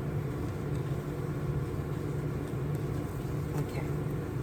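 A steady low hum, as from a motor or appliance running, with a few faint light ticks near the end.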